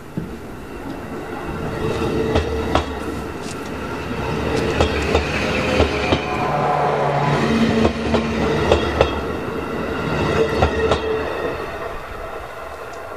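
JR Hokkaido 711 series AC electric multiple unit running past along the platform, its wheels clicking over the rail joints in pairs over a steady hum. The sound grows louder as the cars pass close, then fades as the train moves away.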